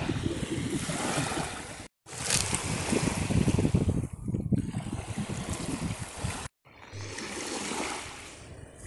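Wind buffeting the microphone over the wash of surf on a pebble beach. The sound drops out twice, briefly.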